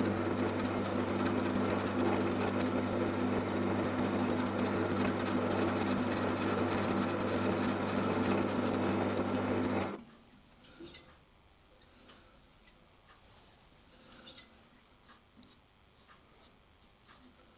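Metal-turning lathe running with a steady motor hum, which cuts off abruptly about ten seconds in. Then come several short, high-pitched squeaks.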